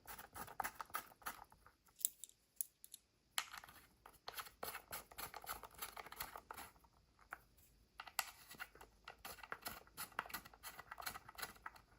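Irregular small clicks, taps and scrapes of door-lock hardware and screws being handled and fitted by hand.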